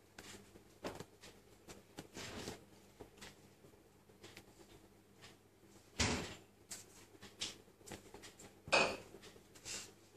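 Handling sounds as a cardboard tissue box is lifted off and set back onto a lacquered wooden watch box: a few short, dull knocks and rustles, the loudest about six seconds in.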